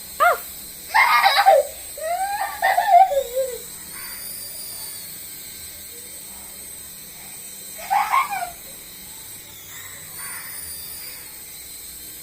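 A baby squealing and shrieking excitedly in short high-pitched bursts, several in the first few seconds and one more past the middle. Between them a faint high whine rises and falls, the small motor of a toy remote-control helicopter.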